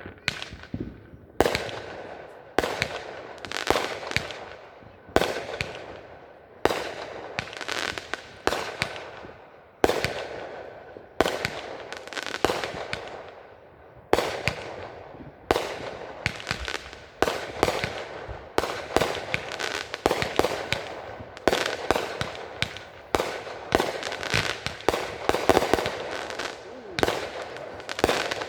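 Fireworks show: bang after bang of fireworks bursting, each one trailing off, about one or two a second and coming faster in the second half.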